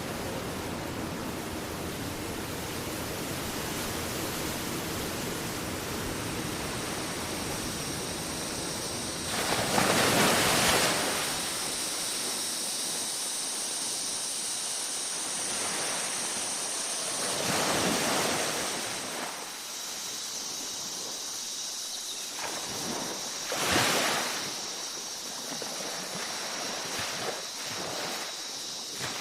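Surf on a beach: a steady wash of breaking waves, with three bigger waves crashing in about ten, eighteen and twenty-four seconds in. A faint steady high-pitched ringing sits underneath from about seven seconds in.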